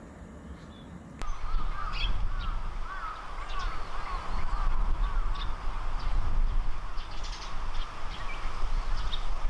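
Wind rumbling on the microphone, starting abruptly about a second in. Over it a bird calls in a quick series of short rising-and-falling notes, with scattered higher chirps.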